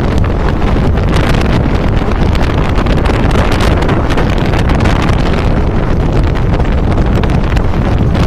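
Wind rushing over the microphone held out of a moving passenger train, over the steady rumble of the coaches' wheels on the rails, with frequent short knocks.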